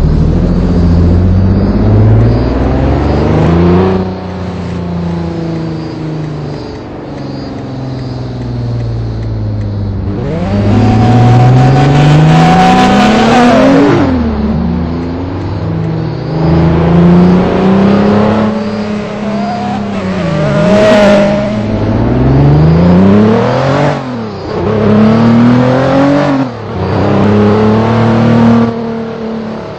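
Vehicle engine running under way, its pitch repeatedly climbing under throttle and then dropping back, several times over. A louder rushing noise joins in for a few seconds around the middle.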